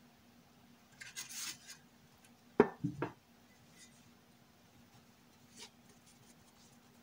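Dough thumped down and pressed by hand on a wooden cutting board: one sharp thump followed quickly by two softer ones, after a brief rustle of hands or a plastic glove. A faint steady hum underneath.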